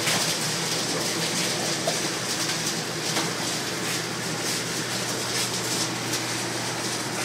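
Steady mechanical drone and hiss of hog-barn machinery, with a low hum and faint irregular clicks and rattles on top.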